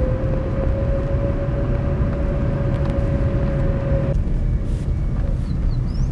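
Vehicle driving, heard from inside the cabin: a steady low road and engine rumble with a thin steady whine that cuts off suddenly about four seconds in, when the hiss also drops.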